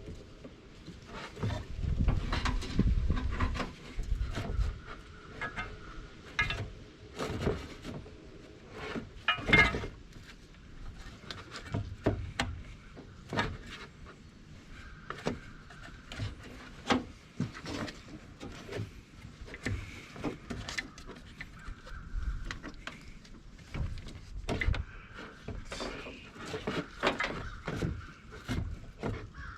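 Irregular knocks, clicks and clunks of hands and parts as a new blower motor and fan assembly is worked into its housing on a truck's firewall. Crows caw in the background in the second half.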